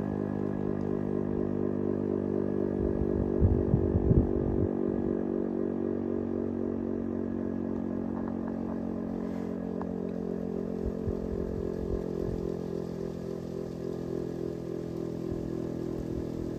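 Federal Signal STH-10 electromechanical warning siren sounding a sustained tone during its daily curfew blast, holding a steady pitch with its level easing slightly toward the end. Low gusts of wind buffet the microphone about three to five seconds in.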